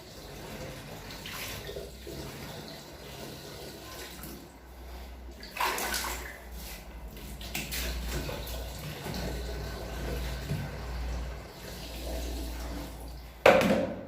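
Water running and splashing into a container, with a sharp knock near the end.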